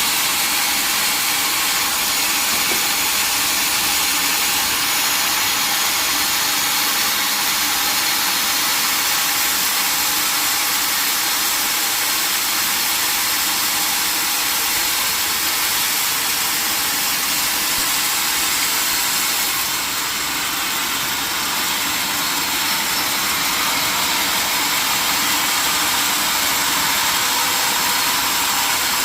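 Sawmill machinery running steadily: a loud, continuous mechanical noise that dips slightly about twenty seconds in.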